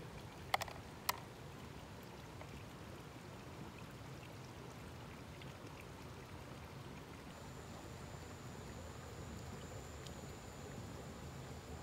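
Two sharp clicks about half a second apart as freshwater snail shells drop into a clear plastic tub, followed by a faint steady low outdoor rumble.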